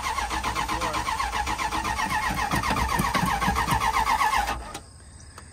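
Dodge Ram 1500 V8 cranking on its starter in an even, steady rhythm without firing, then stopping about four and a half seconds in. The engine won't catch after the crash, and the crew wonder whether a fuel line was ripped off.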